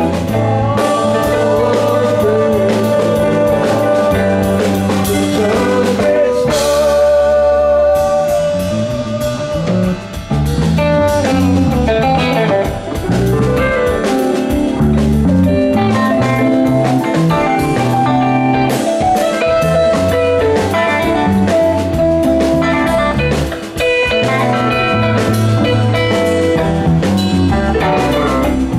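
Live rock band playing, with electric bass and electric guitar over a drum kit.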